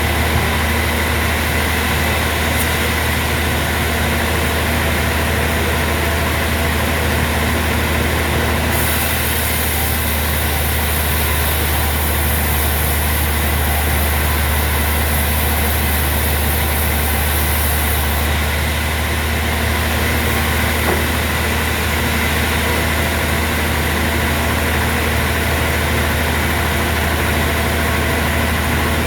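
Sawmill machinery running steadily: a constant engine-like drone, strongest in the low end, with no change in pitch or load.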